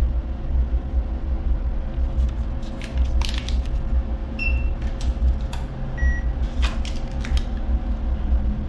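ATM button beeps: a short high beep about four and a half seconds in as the screen-side key is pressed, and a second, lower beep about a second and a half later. They sit over a steady low hum with a few light clicks.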